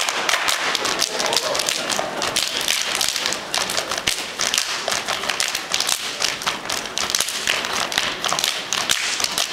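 Many hands clapping and slapping chests together in a fast, dense rhythm, body percussion from a row of kneeling dancers.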